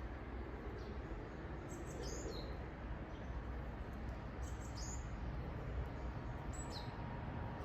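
A bird calling outdoors: a short, high call that falls in pitch, repeated three times a couple of seconds apart, over a steady low background rumble.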